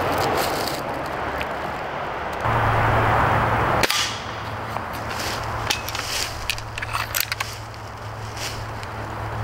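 A single shot from a Stoeger S4000-E .22 break-barrel pellet rifle about four seconds in: one sharp crack. Scattered light clicks and rustles follow.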